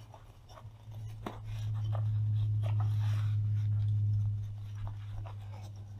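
A steady low hum that swells louder for about three seconds in the middle, with a few faint taps and rubbing as hands press a Velcro-backed panel onto an aluminium step.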